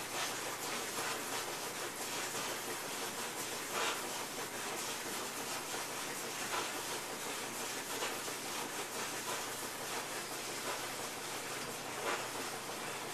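Steady hiss, with a few brief scratchy swishes of a paintbrush scrubbing acrylic paint across a canvas.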